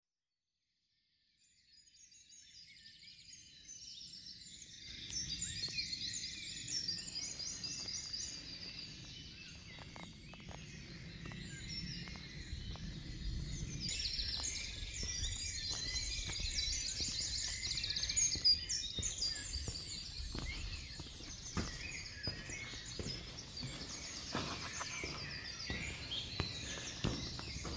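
Several songbirds singing a dawn chorus of rapid chirps and trills, over a low rumble with scattered faint clicks. It fades in about a second and a half in.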